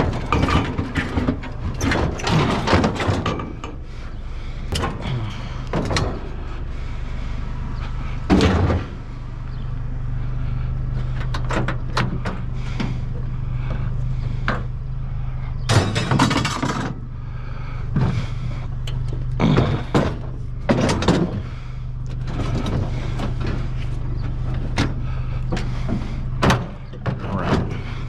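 A motor vehicle's engine idling with a steady low hum, while things are knocked and clattered about in a scattered series of sharp knocks, the loudest about 8 and 16 seconds in.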